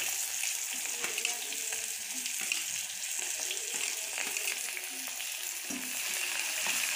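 Chopped onion frying in hot oil with cumin and mustard seeds in a metal kadai: a steady sizzle, with scattered small clicks and scrapes of a spoon pushing the onion in and stirring.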